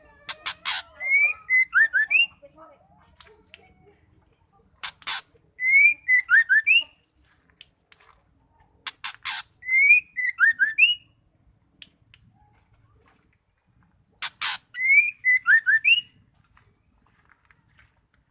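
Female white-rumped shama calling: four repeats of the same phrase, each a burst of harsh rasping notes followed by a short whistled run of rising notes with thin high chirps above it.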